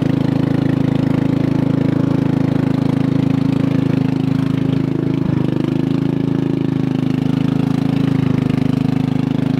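12 hp Briggs & Stratton single-cylinder engine on a garden tractor, running steadily through an open exhaust manifold with no muffler while the tractor is driven. Its sound is one the owner calls wimpy.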